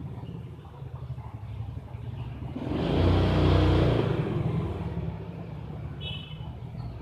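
A motor engine's low rumble that swells to its loudest about three seconds in, then fades away, as a vehicle does passing by.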